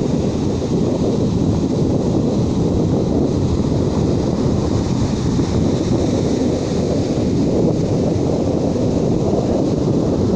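Steady sea breeze buffeting the microphone over the continuous wash of ocean waves on a beach.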